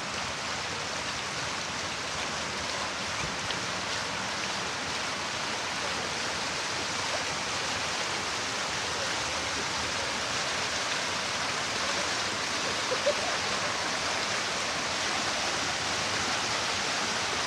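Water from a long fountain wall, pouring down the wall into its channel and splashing from a row of jets: a steady rush of falling water.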